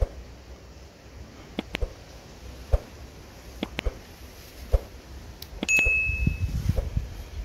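Small scissors snipping several times at a kitten's matted fur, heard as sharp clicks, some in quick pairs. About six seconds in comes a short bright ding, like a notification chime, followed by a low rumble of handling.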